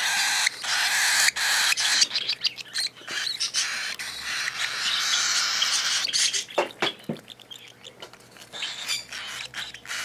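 Cockatiel chicks giving hissing begging calls while being hand-fed with soft food, in long stretches broken by short pauses. The calls die down for a couple of seconds near the end.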